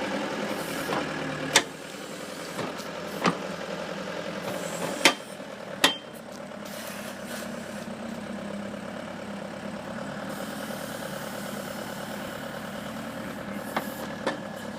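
Bobcat 863 skid-steer's diesel engine running steadily while it powers the 909 backhoe attachment. There are four sharp metallic knocks in the first six seconds.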